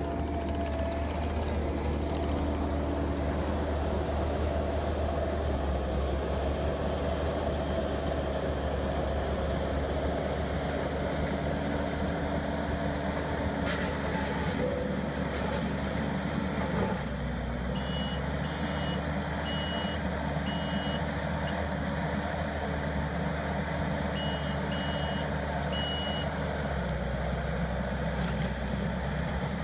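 Kubota SVL90 compact track loader's diesel engine running steadily while it drives an AFE SS Extreme brush mulcher head. From a little past halfway, the loader's backup alarm beeps in short repeated runs over the engine.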